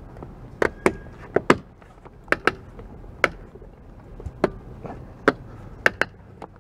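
Plastic clips on the back of a 2013 Honda Accord's side-mirror glass snapping onto the mirror actuator as the glass is pressed in by hand: about a dozen sharp clicks at irregular intervals, some in quick pairs.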